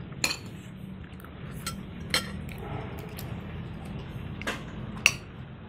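Dishes and cutlery clinking on plates during a meal: four short, sharp clinks a second or two apart, over a low steady hum.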